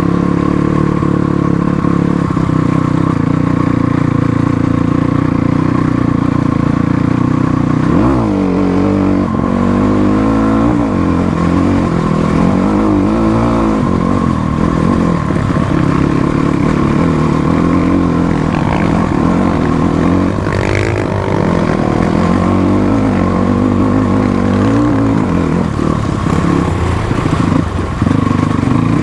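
Motorcycle engine running under load on an off-road uphill climb. It holds steady for long stretches, and the revs rise and fall around a third of the way in and again after the middle.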